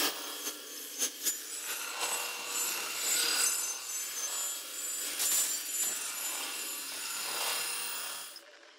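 Electroacoustic music made of a dense, scratchy, grainy noise texture with a few sharp clicks near the start. It swells and fades in waves, then cuts away to near silence just before the end.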